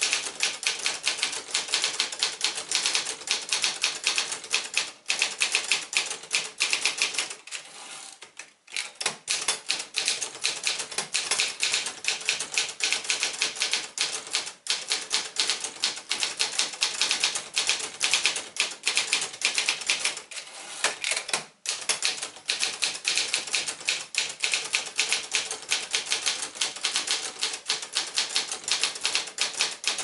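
Fast, continuous typing on a 1978 Sears Achiever (Brother JP-7) manual portable typewriter: a rapid run of keystroke clacks. It breaks off in a few short pauses and one longer lull about eight seconds in.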